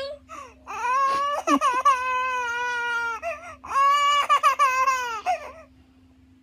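A baby crying: two long, high wails of about two seconds each, a short pause between them.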